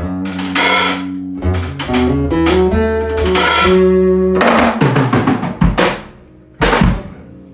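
Loud live jam of guitar and drums: guitar notes and chords ring over drum-kit hits and crashes. About six seconds in the playing breaks off, then one last loud hit rings out.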